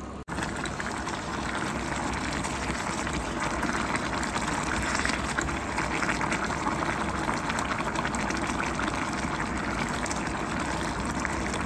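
Watery kachri and cluster-bean curry bubbling steadily in its pot on medium heat: an even boiling hiss with fine crackles as the gravy cooks down and thickens.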